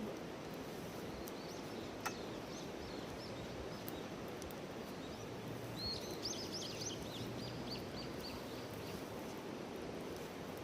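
A songbird singing two rapid phrases of repeated high notes, the second louder and about six seconds in, over a steady background hiss. A single sharp crack about two seconds in.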